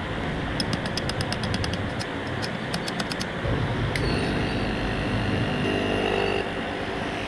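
Rapid light tapping, several taps a second for about two and a half seconds, over a steady mechanical hum. A knock then comes, followed by a steady high whine that lasts about two seconds.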